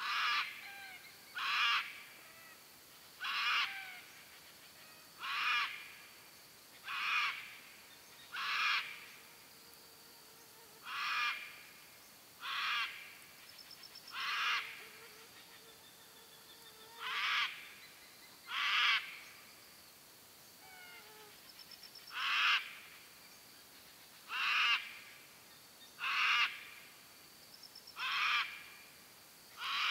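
Sulphur-crested cockatoo giving harsh screeching calls one after another, about one every one and a half to two seconds, each short, with a brief break partway through.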